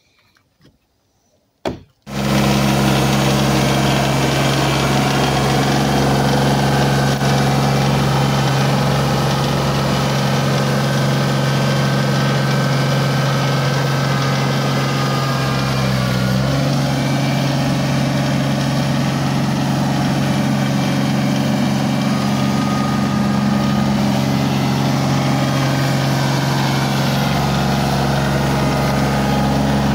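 Compact tractor engine running steadily at a constant speed. It cuts in abruptly about two seconds in, after a single knock, and its note dips and recovers briefly around the middle.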